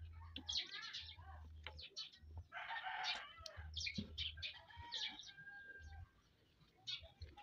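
A rooster crows in the background about two and a half seconds in, among chicken clucks, over the small clicks of someone eating rambutan close by.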